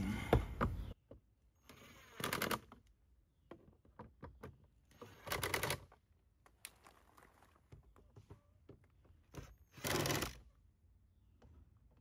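Cordless drill-driver running in short bursts, about four of them, each half a second or so of rapid clicking, as it snugs down the screws of a car door panel. Small clicks and handling knocks fall between the bursts.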